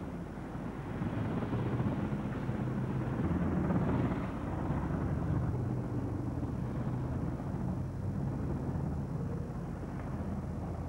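Low, steady engine rumble of a vehicle. It swells to its loudest about four seconds in, then eases off.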